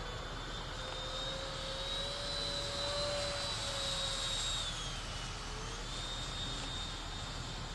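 The high whine of a 64mm electric ducted fan in a Banana Hobby F-16 radio-controlled jet in flight. The pitch climbs slightly, dips about five seconds in, then holds steady.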